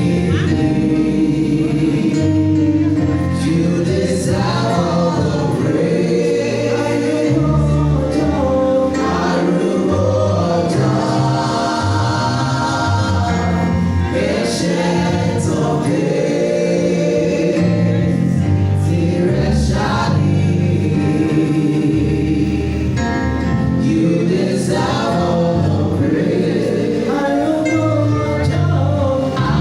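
A vocal group singing a gospel song in harmony over a band accompaniment with a steady bass line.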